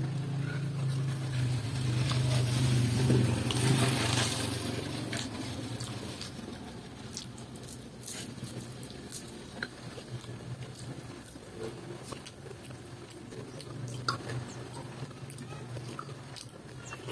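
Close-up eating sounds: chewing and lip smacking from a man eating rice and fried salted fish by hand, with small scattered clicks. A low drone fades out over the first few seconds.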